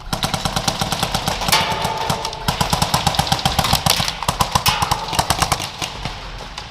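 Airsoft guns firing on full auto: long rapid rattles of shots, at times overlapping as more than one gun fires.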